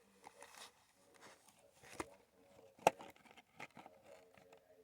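Faint handling noise of a Pokémon booster pack and trading cards: soft rustling with scattered light clicks, and one sharper tap about three seconds in.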